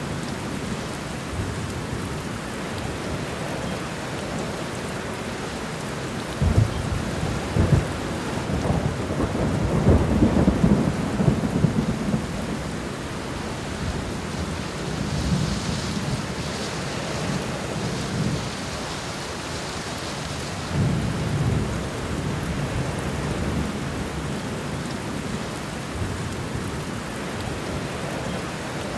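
Thunderstorm: steady rain falling, with rolling thunder that cracks and rumbles loudest about a third of the way in, and a shorter rumble a little past the middle.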